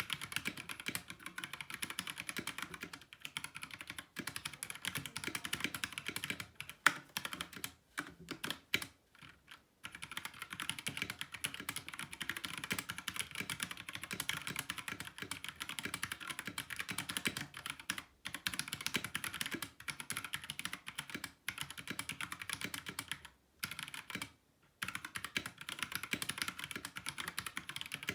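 Fast, continuous typing on a 60% mechanical keyboard with Kailh linear switches, a dense stream of key clacks with a couple of brief pauses.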